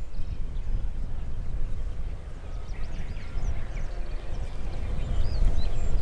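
Wind rumbling and buffeting on the microphone, with faint high bird chirps and short whistled calls, more of them in the second half.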